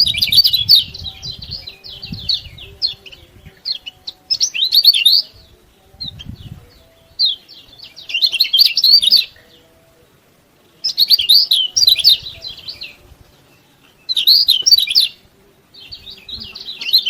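Kecial kuning white-eye giving rapid, high 'ciak-ciak' chirping in bouts of one to two seconds, with short pauses between bouts.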